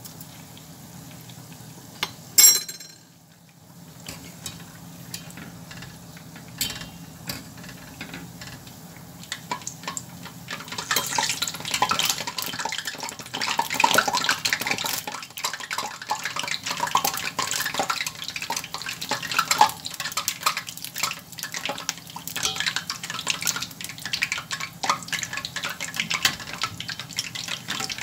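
Dough buns deep-frying in a steel saucepan of hot oil, sizzling, while a metal spoon ladles oil over them, clinking and scraping against the pan. One sharp metallic clink about two seconds in; from about ten seconds in the crackling grows louder and busier.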